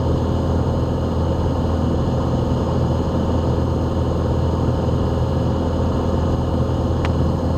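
Steady drone of a light single-engine airplane's piston engine and propeller in cruise, heard from the cockpit, with one short click near the end.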